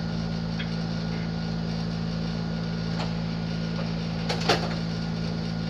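A steady low hum, with a brief knock about four and a half seconds in.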